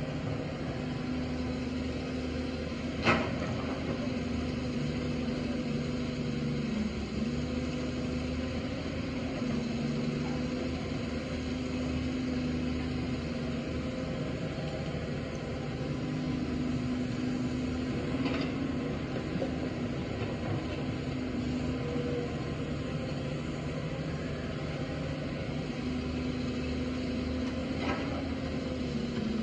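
Cat hydraulic excavator's diesel engine running steadily as it digs, its pitch dipping slightly now and then under hydraulic load. Three sharp clanks ring out, about 3 seconds in, midway and near the end, the first the loudest.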